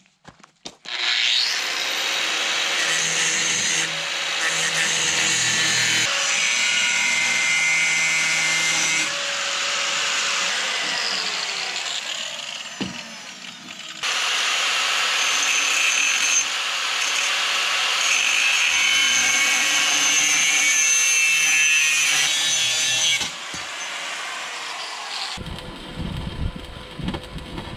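A power tool cutting metal pipe, with many steady ringing tones over a harsh cutting noise. It runs as two long cuts: the first starts about a second in, there is a short dip near the middle, and the second stops a few seconds before the end.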